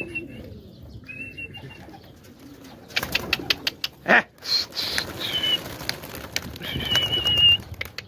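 A flock of domestic pigeons is being put up again for another flight round: wings flap and clatter as the birds take off, busiest from about three to five seconds in. Several high, drawn-out whistles sound over it, and a loud rising call comes about four seconds in.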